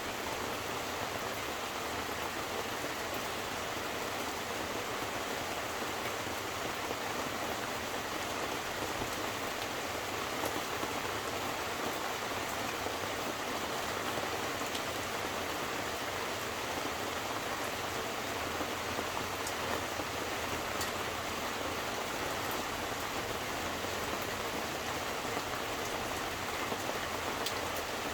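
Steady rain falling, an even hiss of rain with scattered individual drops ticking on nearby surfaces.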